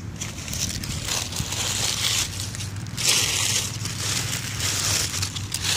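Dry fallen maple leaves crunching and crackling, in uneven bursts that get louder about three seconds in.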